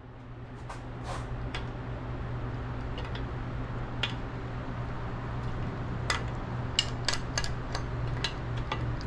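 Scattered light metallic clicks and clinks of a tight main bearing cap being worked loose from an LS engine block, coming more often in the second half, over a steady low hum.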